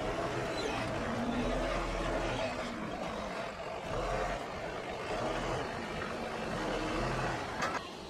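Forklift engine running, its pitch rising and falling as it works, with a sharp click near the end.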